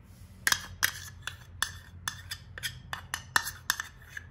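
A small plastic tub knocking and tapping against the rim of a glass mixing bowl, about a dozen sharp, irregular clicks as melted ghee is emptied out of it.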